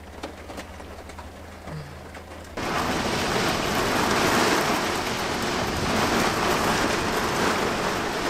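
A low steady hum with a few faint clicks gives way abruptly, about two and a half seconds in, to heavy, steady rain pouring down in a storm.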